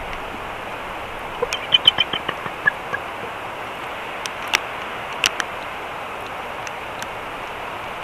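Bald eagle giving a quick run of soft, short chirping notes in its sleep about a second and a half in, over a steady hiss, with a few faint clicks later.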